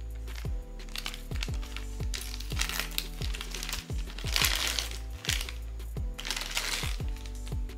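Background music with a steady beat, with POP MART blind-box packaging rustling and crinkling as it is handled and opened. The packaging noise comes in bursts, loudest about four and a half seconds in.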